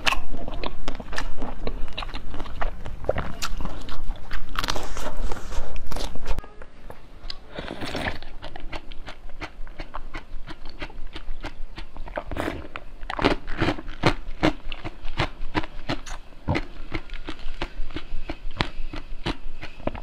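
Close-miked biting and chewing of jelly sweets, a dense run of small wet clicks. About six seconds in, the sound drops abruptly and turns to spooned jelly beads being chewed, with quieter, sharper clicks.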